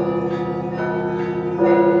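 Russian church bells being rung together: several bells of different pitch, struck in a rhythm about every second, ringing on over a low hum. The loudest strike comes near the end.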